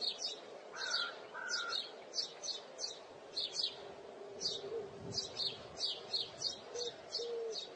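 Small birds chirping: short, high notes repeated two or three times a second, with a couple of lower rising calls about a second in, over a faint steady hum.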